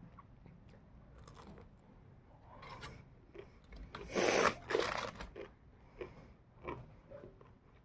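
Someone biting and chewing crispy KFC fried chicken, with crunching bites. The loudest crunch comes about four seconds in, followed by a few shorter, sharper crunches.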